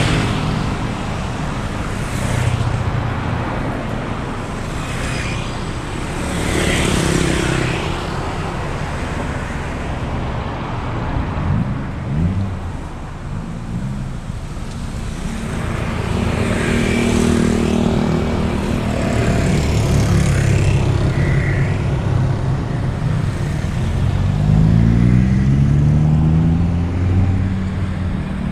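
Busy road traffic: motorbikes and cars passing one after another in a steady stream of engine hum and tyre noise that swells and fades with each vehicle. Near the end an engine speeds up, its pitch rising.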